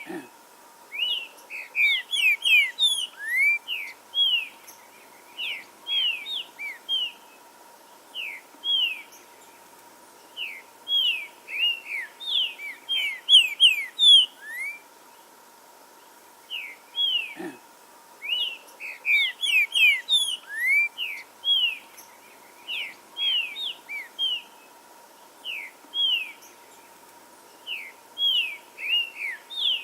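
Trinca-ferro (green-winged saltator) singing: phrases of quick, sharp whistled notes, each phrase a few seconds long and repeated after short pauses. A faint steady hum runs underneath.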